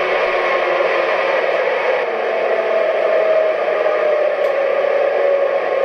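Derailed MTH U30C O scale model diesel locomotive standing still and giving off a steady hissing whir, with a tone that slowly falls in pitch.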